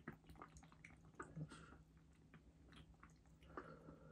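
Kitten suckling milk from a nursing bottle: faint, irregular sucking and smacking clicks, a few each second.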